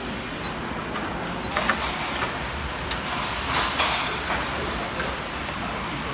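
Mess-hall serving-line clatter: a steady background hum with a few sharp clinks of tongs, dishes and trays on the stainless-steel counters. The loudest clinks come about three and a half seconds in.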